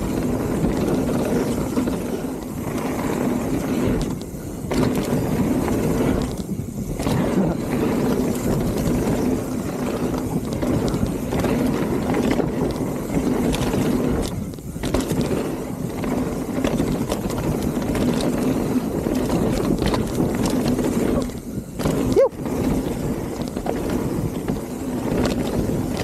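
Mountain bike descending a dirt trail at speed: steady rush of tyres, drivetrain and frame rattle, with a steady low buzz. The noise dips briefly a few times.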